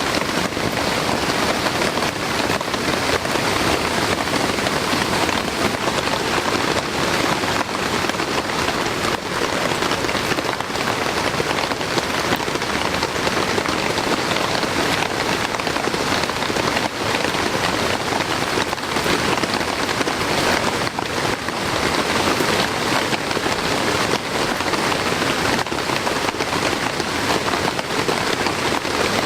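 Heavy rain falling steadily, a dense hiss of rain with many close drops hitting a surface.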